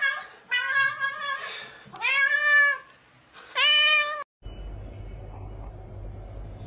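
Domestic cat meowing over and over: short meows, then two long drawn-out ones, the first rising and falling in pitch. After about four seconds the meowing cuts off and a low steady hum remains.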